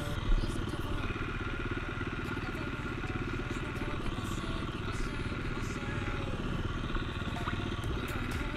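An engine running steadily at an even speed, with a rapid low pulsing throughout.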